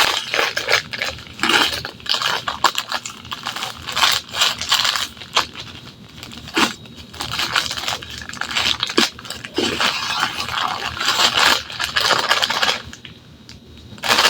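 Kitchen handling noise: irregular crinkling, scraping and small clicks and clatters as ingredients and packaging are handled, with a quieter pause near the end.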